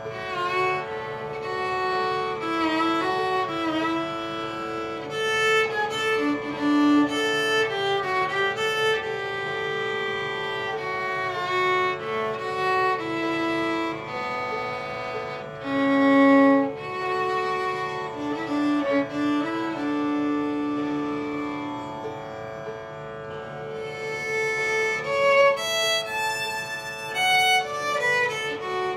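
Instrumental background music: a violin-like bowed string melody over a steady held note.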